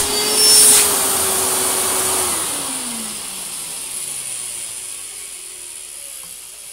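Goblin Aquavac 620 wet-and-dry vacuum cleaner, running on a Vax New Wave 1100 motor, with a steady whine and a strong rush of air. About two seconds in, the motor winds down: the whine falls in pitch and the rush of air fades away.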